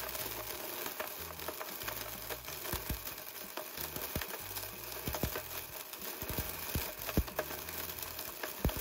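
Blendtec blender chopping scraps of PLA 3D-printed plastic: a steady rushing noise with scattered sharp clicks of plastic pieces striking the jar.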